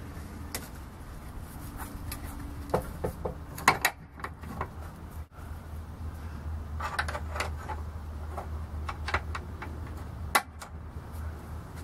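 Scattered light clicks and knocks of hands working a fold-down storage bin under a motor home: a sewage hose pushed in and a small metal latch pin handled and fitted. Underneath runs a steady low hum.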